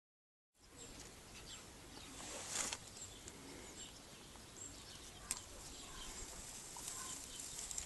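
Faint outdoor ambience with short, high, distant chirps now and then, a brief rustle about two and a half seconds in and a single click a little past five seconds.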